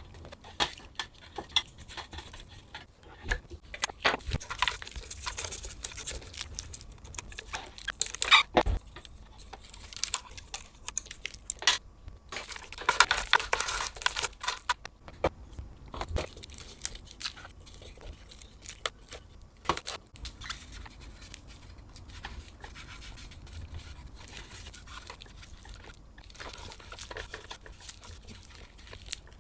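Handling noise from a Bodum coffee grinder being worked on for polishing: irregular clicks and knocks of its casing, with a stretch of rubbing or scrubbing about halfway through.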